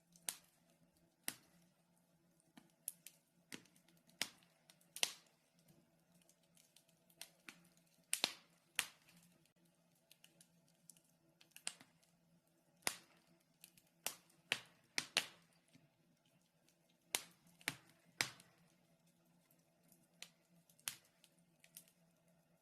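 Fire crackling in a fireplace: sharp pops and snaps at irregular intervals, some much louder than others, over a faint steady hum.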